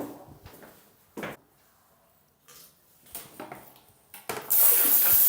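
A few light knocks and clicks of handling. Then, about four and a half seconds in, a hand-held bidet sprayer (bumgun) starts spraying water with a loud, steady hiss, its first test after installation.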